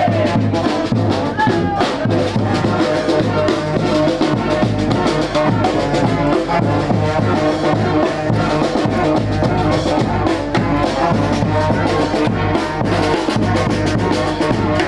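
Street brass band playing: trombones and trumpets over a steady drumbeat.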